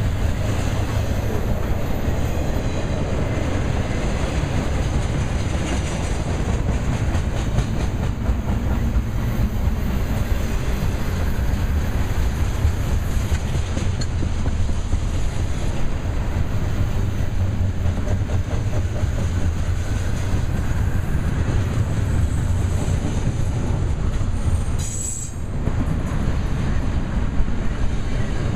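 Union Pacific double-stack container train rolling past: a steady rumble of steel wheels on rail, with a brief lull near the end.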